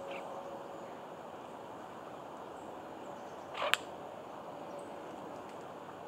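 Steady outdoor background hiss with a few faint, high bird chirps. A little past halfway, one short, sharp sound, a quick rise ending in a click, is the loudest moment.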